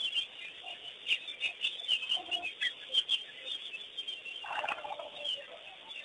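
Wild birds chattering and calling at an African waterhole, with one louder, pulsed, fowl-like call about four and a half seconds in.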